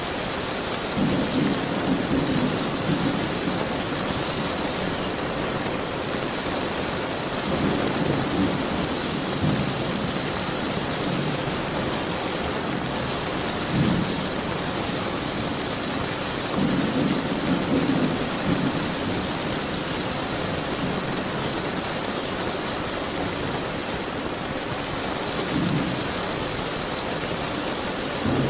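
Steady rain with several low rolls of thunder rumbling over it, the loudest about a second in, around 14 seconds and around 17 to 18 seconds.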